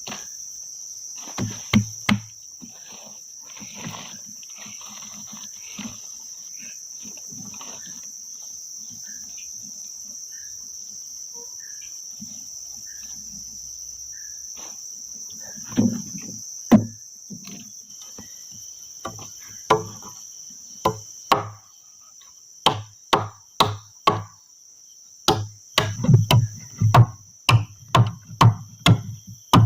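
Crickets keep up a steady high-pitched drone. Over it come repeated strikes on wood: a few scattered ones at first, then a quickening series of about two a second in the last several seconds.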